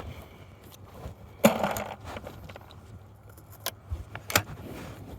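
Metallic clacks and clicks of a 12 gauge over-and-under shotgun being handled between shots: the break action worked and reloaded. There is a louder clack about a second and a half in, and two sharp clicks near the end.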